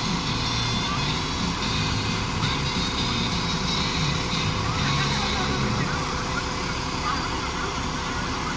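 Fire truck engine running with a low hum that fades out about six seconds in, over steady background noise.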